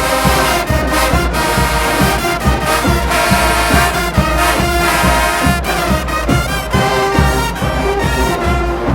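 Marching band playing loudly: brass and trombones over a steady, driving drum beat, which starts abruptly.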